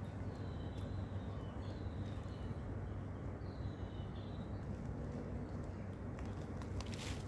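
Outdoor background with a steady low rumble, over which a bird gives three faint, short, high chirping phrases in the first four seconds; a few light clicks near the end.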